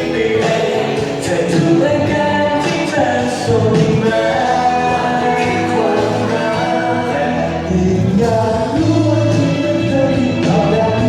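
A song with singing over a band backing with drums, playing on steadily.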